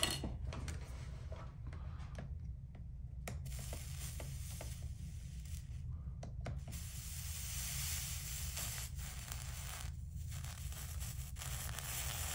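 Soldering iron melting 50-50 solder along a fluxed copper-foil seam, a faint steady hiss that sets in about three seconds in, breaks off briefly near the end and resumes. A steady low hum and a few light clicks of handling lie underneath.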